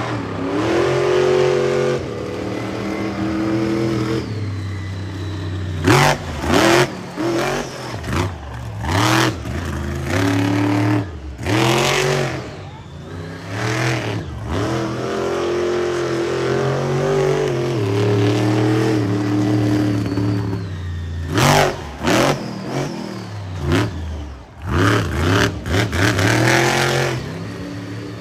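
Monster truck engine revving hard, its pitch swinging up and down, with several short, loud bursts of throttle.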